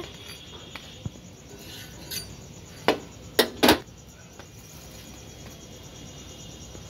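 A metal utensil clinking against an iron tawa as a toasted bread slice is lifted off it: a few sharp clinks around the middle, three of them louder and close together.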